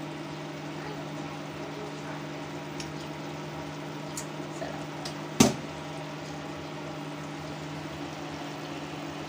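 Steady low hum and light hiss of a pot of fish paksiw simmering, with a few faint utensil ticks and one sharp clink about halfway through.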